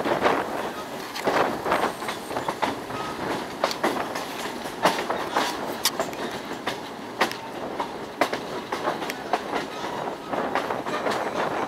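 Train rolling along the track, heard from aboard: the wheels clatter over the rails in irregular clicks and knocks over a steady rushing ride noise.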